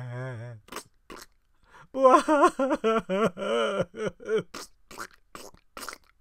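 A voice acting out exaggerated crying, with long wavering wails ('waaaa', 'bwa-hwa-hwaaw-waaaa'). The first wail trails off just after the start, a louder sobbing run of wails follows about two seconds in, and then a string of short clicks.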